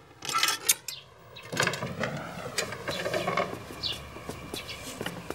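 A key worked in a large metal padlock, clicking and rattling as the lock is opened, then a heavy wooden door creaking and scraping open from about one and a half seconds in.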